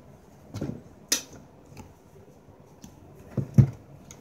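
A few scattered knocks and thumps, with a pair close together about three and a half seconds in.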